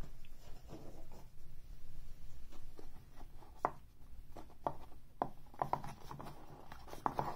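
Scattered light clicks and soft rubbing, growing more frequent in the second half, with a few sharper taps near the end.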